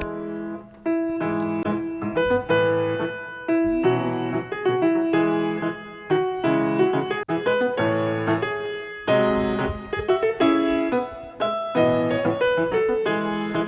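Background music: piano playing a slow sequence of struck chords.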